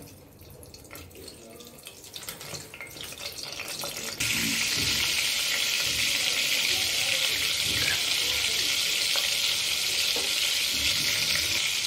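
Butter melting in hot oil in a pressure cooker: a few faint crackles at first, then a steady sizzle that starts abruptly about four seconds in as the fat foams up.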